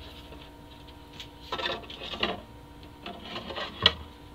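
Thin sheet-steel dust hood being handled and turned over on a wooden workbench: light metallic rattles and scrapes, then a sharp knock near the end as it comes down on the bench.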